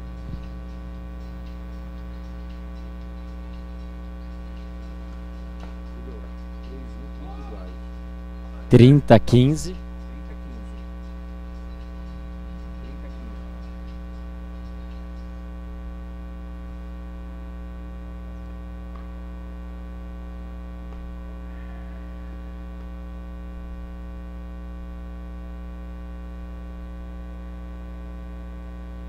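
Steady electrical mains hum with a buzzing stack of overtones in the audio feed, with no court sound coming through. About nine seconds in, one loud burst lasting about a second cuts over it.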